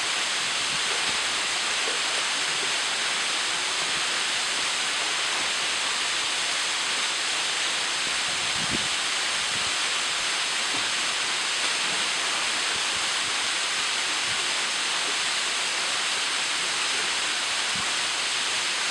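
Ohau Stream waterfall: a steady rush of falling water pouring into the pool, with a faint low knock about 9 seconds in.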